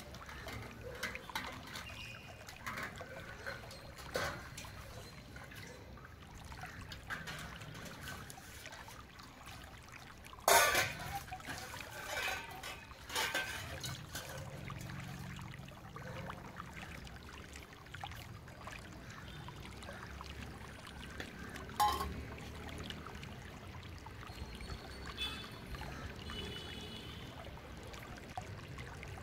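Water trickling, pouring and splashing as stainless steel pots and bowls are hand-washed in a large steel basin of soapy water, with light clinks of steel on steel. A loud metallic clang about ten seconds in, and another knock with a short ring about twenty-two seconds in.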